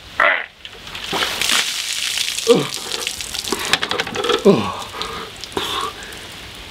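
A bucket of ice water splashing down over a man's head, followed by two short shouts that drop in pitch as the cold hits, with rain falling steadily.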